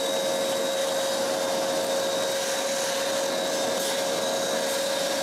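Vacuum cleaner running steadily with a constant whine, its hose nozzle sucking dirt and debris out of a motorcycle's engine bay around the carburetor boots.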